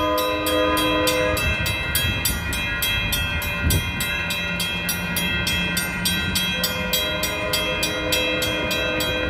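Coaster commuter train's air horn sounding a held chord, once at the start and again from about two-thirds of the way through. A grade-crossing bell keeps ringing with rapid, even strokes, over the rumble of the train on the track.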